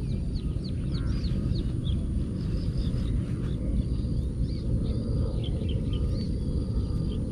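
Small birds chirping in quick, short notes over a steady low rumble.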